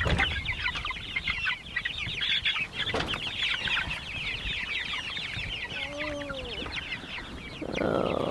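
A flock of young meat chickens peeping constantly in fast, overlapping high chirps. A short lower call comes about six seconds in, and a brief burst of noise near the end as one bird is caught and lifted.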